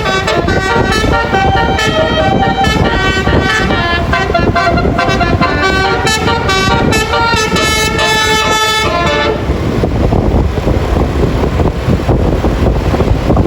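Bus 'telolet basuri' musical horn playing a quick tune of stepped notes, cutting off about nine seconds in and leaving a low rumble.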